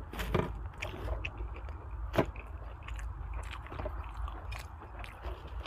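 A person chewing and biting food close to the microphone, with irregular short wet clicks and smacks of the mouth.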